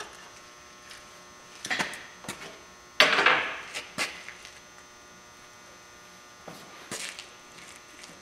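Scrapes and knocks of parts being handled during ATV reassembly, the loudest a sharp clunk about three seconds in, over a faint steady electrical hum.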